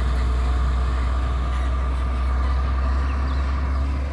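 Heavy tractor-trailer truck hauling a very heavy oversized load along the road, its diesel engine giving a steady low rumble.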